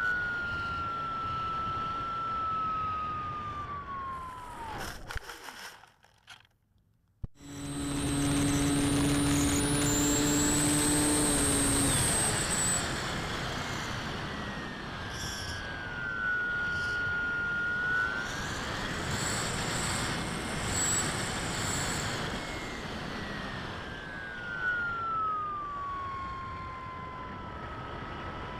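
Bixler 3 RC plane's electric motor and propeller whining, heard from the onboard camera. The pitch slides down as the throttle comes back, cuts out to near silence for about two seconds, then comes back in loud, sweeps down and up again, and falls away near the end as the plane comes down low over the field.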